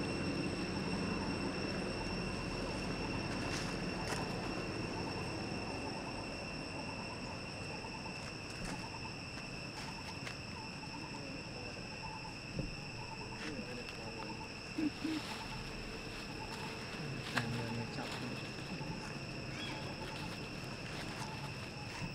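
Steady drone of insects, two constant high tones over a low outdoor background, with a few soft taps and rustles here and there and faint chirping.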